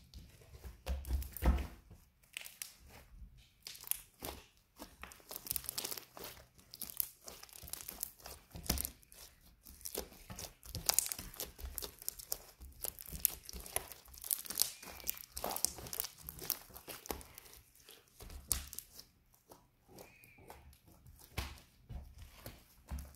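Homemade slime with small beads mixed in, squished, pressed and stretched by hand: a steady run of irregular wet crackles, clicks and sticky tearing sounds.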